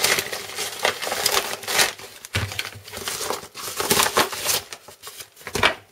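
Packaging of a mailed parcel being opened and handled, with irregular crinkling and rustling of paper or plastic wrapping that thins out near the end.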